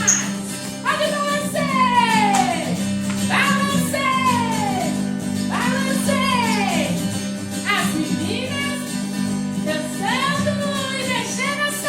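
Festa junina music: a steady low accompaniment under a voice-like pitched sound that slides downward about every two seconds, with no words sung.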